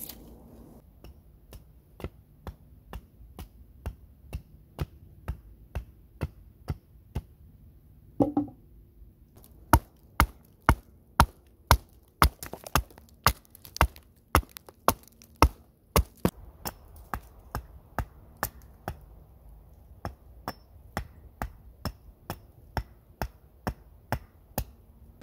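A hatchet chopping wood: a long, steady run of sharp strikes, roughly two a second, loudest in the middle. About eight seconds in there is one duller thud among them.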